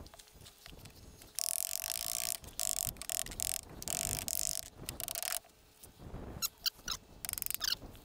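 A sheet of lead roofing being pressed and rubbed down over the top of a log, in about five scraping strokes, then quick light hammer taps on a nail near the end.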